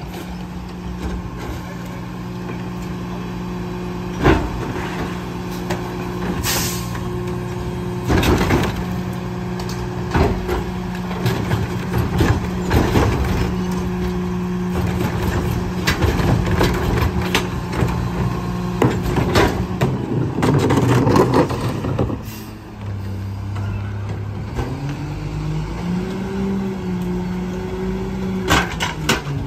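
McNeilus rear-loader garbage truck's engine running steadily while carts and trash clank and thud into the hopper, with a short hiss of air about six seconds in. From about 24 seconds the engine's pitch rises and holds as the truck pulls away.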